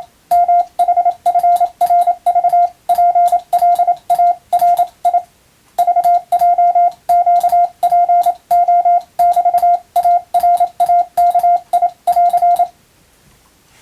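Hand-keyed Morse code: a steady mid-pitched beep switched on and off in dots and dashes, with a faint click at each keying. It pauses briefly partway through, between groups, and stops shortly before the end.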